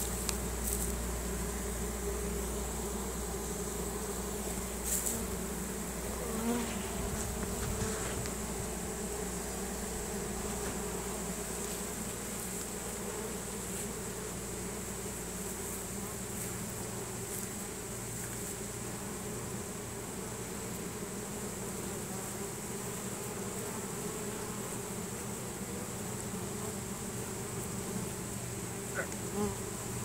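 Honey bee swarm buzzing in a steady, dense hum as the bees march into a new hive box.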